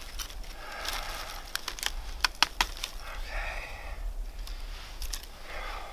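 Knife carving a notch into a wooden bow-drill fireboard: short scraping cuts with scattered sharp clicks as the blade bites and chips come away.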